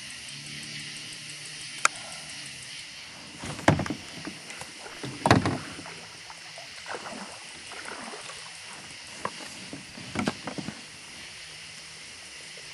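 Knocks and thumps of gear being handled in and against a kayak, about five sharp ones spread out, over a steady high hiss.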